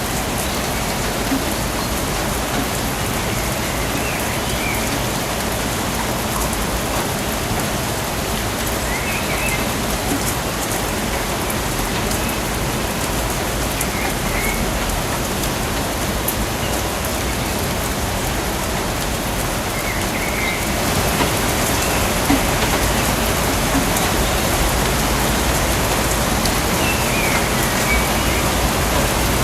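Steady rain falling on rainforest foliage, growing slightly louder about two-thirds of the way through. A few faint, short bird chirps come every five seconds or so.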